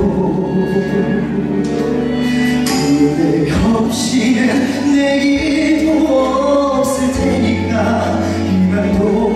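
A man singing live into a handheld microphone over instrumental accompaniment with long-held bass notes.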